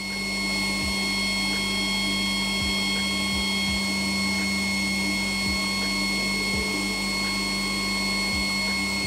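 Turbocharger cartridge spun by compressed air in a DBST-20 low-speed balancing machine, held at about 5,400 rpm for a measurement run: a steady whine of several held tones over a hiss.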